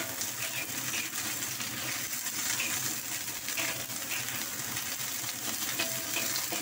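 Napa cabbage and carrot sizzling in a hot wok as they are stir-fried, with a metal spatula scraping and clinking against the wok in short, irregular strokes.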